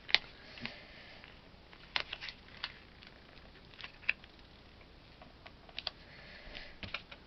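Light clicks and taps of card stock being handled and pressed down by hand, about ten scattered through, the sharpest just after the start, with faint paper rustle.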